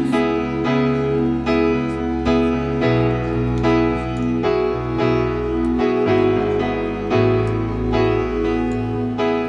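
Piano playing a slow instrumental passage: chords struck again and again over sustained bass notes that move to a new note every couple of seconds.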